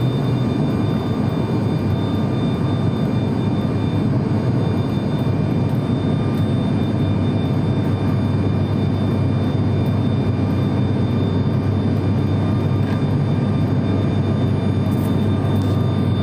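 In-cabin drone of a high-wing turboprop airliner in flight, heard from a window seat beside the engine: a loud, steady rush with a strong low hum and a few faint steady whines higher up.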